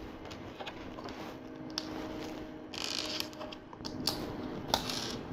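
Small plastic LEGO pieces clicking and rattling as tiles and plates are handled and pressed together, with a short rustle about three seconds in.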